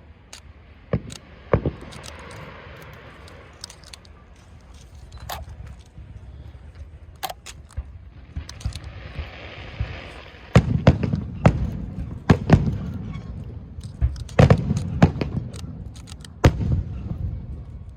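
Aerial fireworks shells bursting overhead: scattered sharp bangs with crackling at first, then from about the middle a rapid run of loud booms that rumble and echo after each burst.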